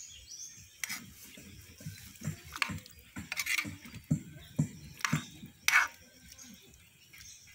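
A metal ladle stirring a stew of meat, carrots and potatoes in a metal wok: irregular clinks and scrapes of the ladle against the pan, with the sauce sloshing between them.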